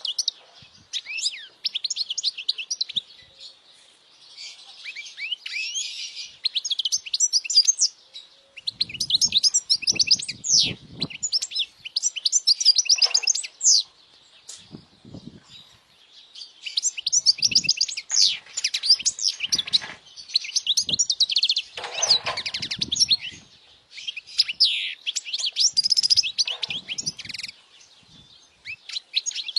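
European goldfinch singing: phrases of rapid, high twittering chirps and trills, broken by short pauses, with a few faint low thumps.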